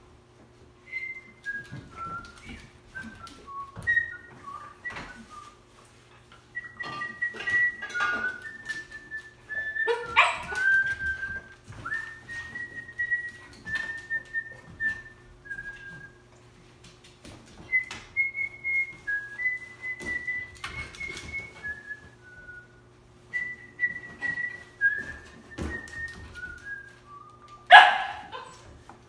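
A man whistling strings of short, varied notes in phrases with pauses between them. Near the end a Cardigan Welsh Corgi puppy gives one sharp bark, the loudest sound.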